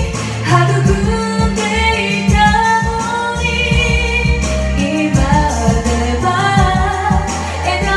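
A woman singing into a handheld microphone over a karaoke backing track with a steady bass line and beat.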